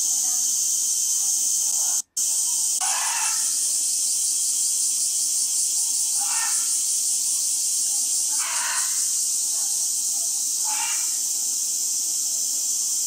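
A steady high-pitched hiss with faint, short mid-pitched calls or voices every two seconds or so. The sound drops out for an instant about two seconds in.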